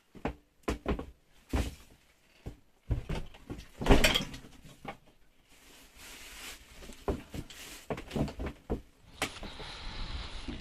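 Irregular knocks and clunks on wood in a small wooden shed, about one a second, the loudest near four seconds in; then, from about nine seconds, a steady hiss with a few light knocks.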